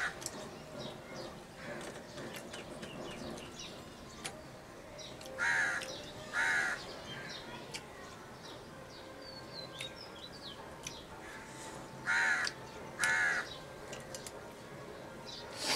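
Crow cawing: two pairs of short caws, each pair about a second apart, with fainter chirps of small birds and light clicks in between.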